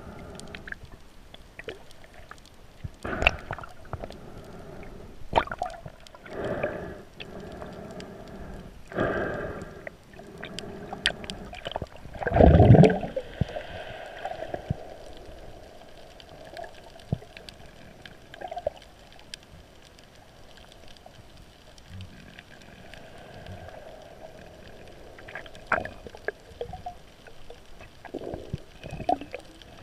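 Muffled underwater sound heard through a GoPro's waterproof housing: irregular gurgling pulses of water every few seconds, the loudest about twelve seconds in.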